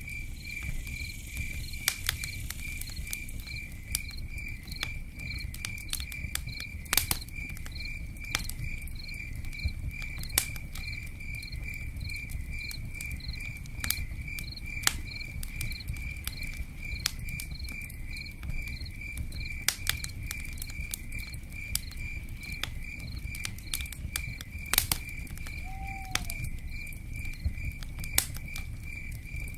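Campfire crackling with scattered sharp pops, over a steady low rumble. A cricket chirps throughout in a fast, even pulse.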